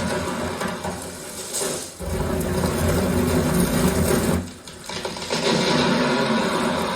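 A dense mix of film sound effects played back over studio speakers, built up from separate layers such as thunder and trees breaking. The sound is loud and rumbling, with two brief dips, about two seconds in and again about halfway through.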